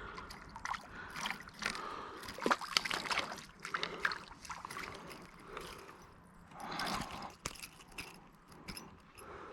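Water splashing and sloshing with scattered sharp clicks and knocks as a freshly caught perch is handled at the water's edge; busiest in the first four seconds and again about seven seconds in.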